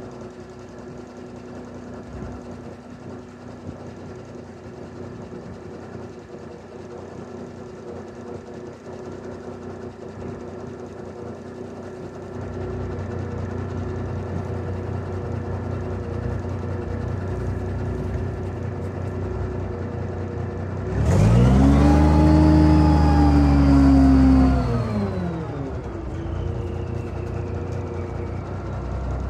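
Semi-tractor's diesel engine idling, then revved up about two-thirds of the way in, held for a few seconds and let back down to idle. The revving drives the hydraulics that raise the lowboy trailer's detachable gooseneck.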